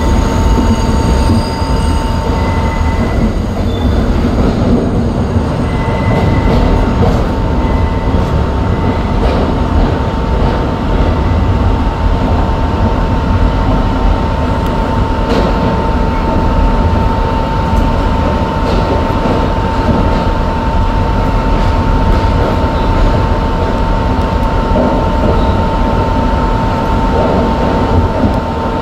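New York City Subway train rolling slowly around the tight curve of the old South Ferry Loop, heard from inside the front car: a steady rumble under a constant high whine. A shrill wheel squeal at the start fades within a second and comes back briefly a few times over the next several seconds.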